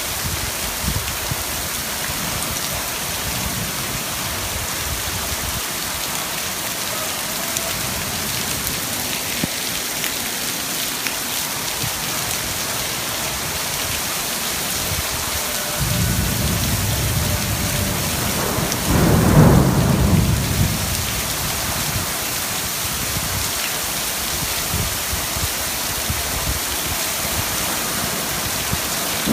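Steady rain hissing down through a thunderstorm, with a low rumble of thunder that begins a little past halfway, swells to its loudest about three seconds later, then fades back under the rain.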